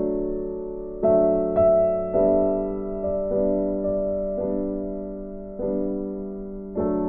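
Slow, gentle background piano music, chords struck about once a second and left to fade.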